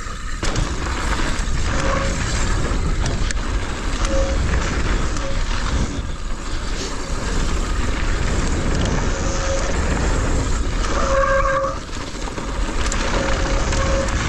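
Wind rushing over an action camera's microphone and mountain bike tyres rolling over a gravel trail during a descent, with brief tones sounding now and then.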